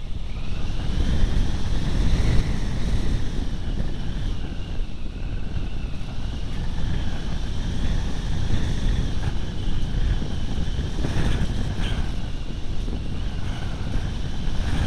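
Wind rushing over the microphone of an electric RC glider in flight, with the steady high whine of its electric motor rising in pitch at the start and then holding. A few brief clicks come about eleven seconds in.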